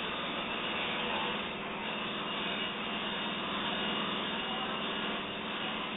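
Lapidary ultrasonic drill machine running steadily: an even hum with a hiss over it.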